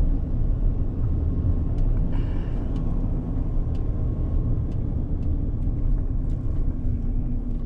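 Steady low rumble of a Chevrolet pickup truck driving slowly, heard from inside the cab: engine and road noise.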